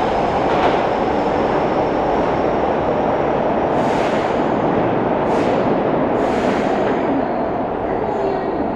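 Kobe Municipal Subway 1000-series train, rebuilt from chopper to IGBT control, heard running at speed: a steady dense rumble of wheels and motors with three short hisses near the middle, easing slightly near the end.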